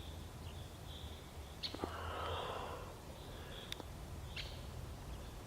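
A bird repeating short high calls about once a second, with a few sharp clicks and a brief rustle about two seconds in over a steady low hum.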